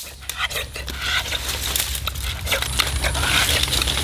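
Dry twigs and leaves crunching and rustling as they are handled, with scattered light clicks. A faint steady high whine comes in about two-thirds of the way through.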